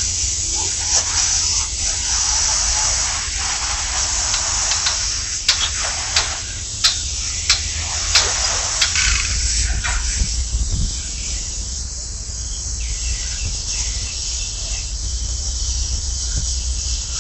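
Gas torch flame hissing steadily with a low rumble as it heats a rebar butt joint to welding heat, about 1200–1300 °C, for a gas pressure weld. A run of about six sharp clicks, evenly spaced, comes in the middle.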